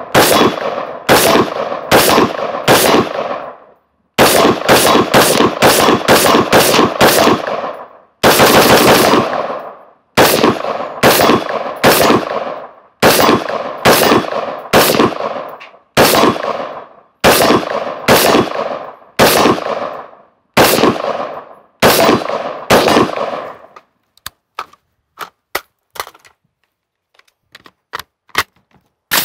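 Daniel Defense MK18 pistol, a short-barrelled 5.56 AR-style gun, firing semi-automatic: single shots and quick strings of shots, each with a short echo. The firing stops about 24 seconds in, leaving a few faint clicks.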